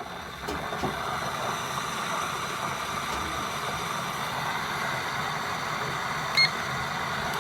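Chefman glass electric kettle heating water with a steady rushing hiss. A short electronic beep from its control panel sounds about six seconds in.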